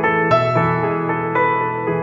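Background music: sustained keyboard chords, a new chord struck about once a second.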